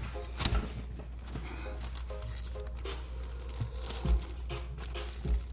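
Clear plastic bag of SMD resistors rustling and crinkling as it is handled, with a few soft knocks, the loudest about half a second in, about four seconds in and near the end.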